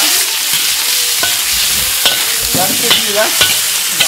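Diced meat sizzling in a hot steel wok, with a metal spatula scraping and clacking against the wok about five times as it is stirred.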